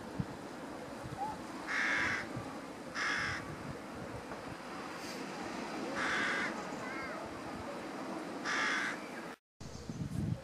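A crow cawing four times, each harsh call lasting about half a second, spaced one to three seconds apart over a steady low outdoor background.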